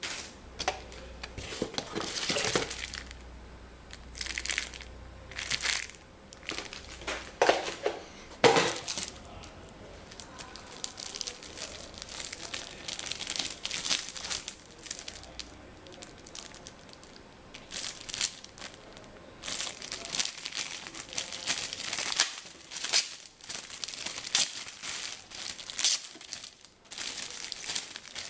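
Packaging crinkling and rustling in irregular bursts as it is handled and unwrapped.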